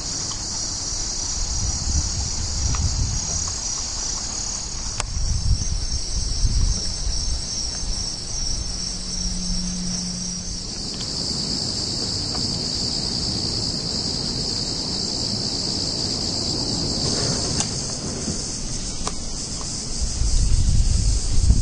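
A steady, high-pitched insect chorus of trilling and buzzing that shifts slightly in pitch a few times, with low rumbles under it at times.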